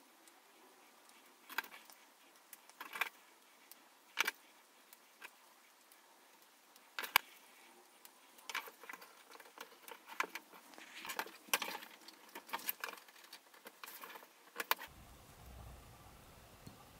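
Irregular light clicks and rattles of small parts of an HO-scale model train set being handled and fitted together, with the clicks thickest near the middle. A low hum comes in near the end.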